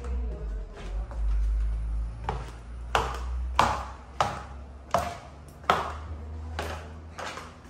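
Footsteps going down a wooden staircase: about eight sharp knocks, starting about two seconds in, at a walking pace of a step every two-thirds of a second, over a low rumble.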